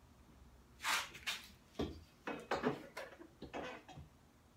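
A series of light knocks and short scrapes as a story stick is set down and slid against a cherry wood bench base at several points, checking its height.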